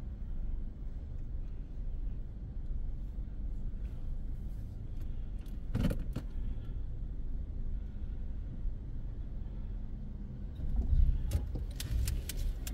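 Low, steady rumble of a car's engine heard from inside the cabin, with a single sharp knock about six seconds in. Near the end the rumble grows louder and comes with a cluster of clicks and rattles.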